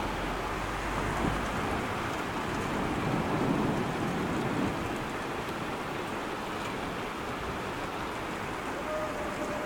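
Heavy rain falling steadily, getting a little louder for a moment about three to four seconds in.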